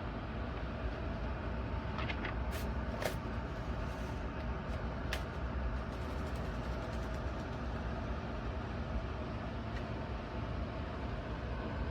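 Vornado Transom window fan running steadily, a constant rushing hum of motor and moving air, with a few light clicks about two to five seconds in.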